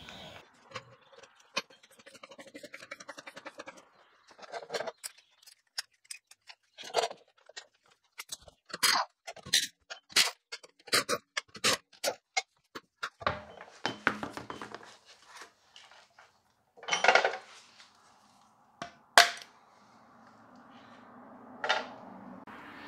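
Irregular sharp metallic clicks and knocks, some single and some in quick clusters, with a low steady hum coming up near the end.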